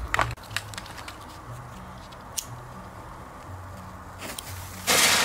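Quiet wait with a few faint ticks while a firework fuse burns, then about five seconds in a Katan Camellia Flower Big ground-spinner firework ignites with a sudden, steady loud hiss of spraying sparks.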